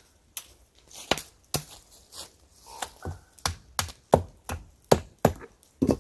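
Hatchet striking an old weathered wooden board: a fast, irregular series of sharp knocks, more than a dozen, starting about half a second in, as the board is chopped and broken apart.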